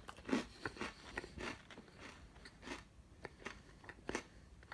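A person biting and chewing a Firework Oreo, a chocolate sandwich cookie with popping candy inside, in a string of irregular crunches.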